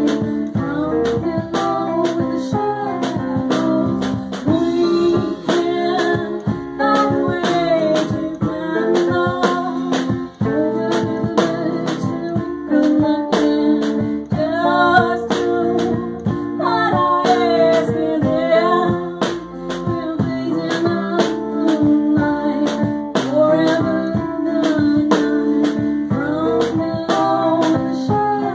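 Live band playing a song in a small room: a woman singing over keyboard, upright bass, electric guitar and a steady drum beat.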